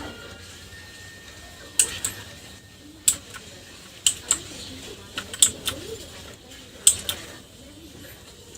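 Keys on a budget mechanical keyboard pressed one at a time, each giving a sharp click, mostly in pairs about a quarter-second apart, with pauses between the keystrokes.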